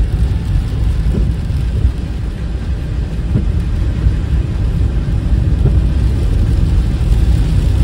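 Steady low rumble of a car's engine and tyres on a wet road, heard from inside the cabin.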